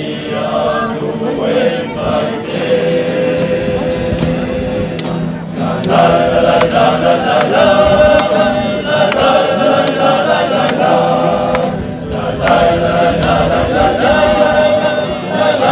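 A choir singing together in several voices, growing louder about six seconds in, with a brief breath between phrases near the end.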